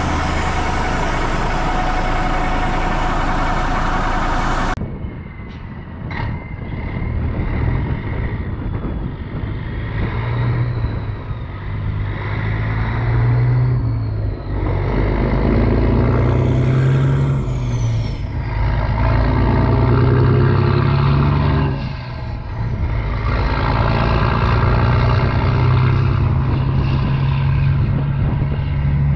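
M51 5-ton 6x6 military dump truck's multifuel diesel engine running under load, its pitch rising and falling as it revs and pulls through the gears. The sound changes abruptly about five seconds in, turning duller.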